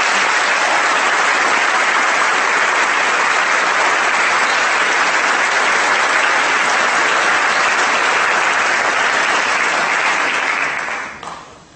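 An audience applauding steadily in a hall, dying away near the end.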